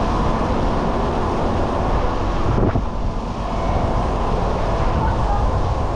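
Wind buffeting the microphone: a steady, low, rumbling noise that rises and falls. There is a brief thump about two and a half seconds in.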